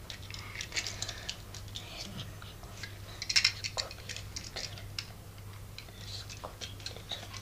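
Small die-cast toy cars clicking and clinking against one another as they are handled and set down: an irregular scatter of light taps, over a low steady hum.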